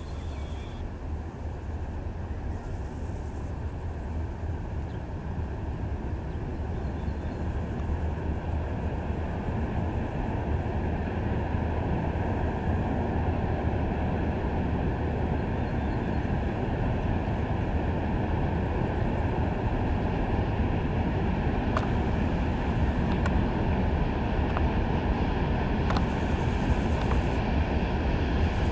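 Steady rumble of an approaching freight train hauled by a VL11M6 electric locomotive, growing steadily louder, with a few faint clicks in the last seconds.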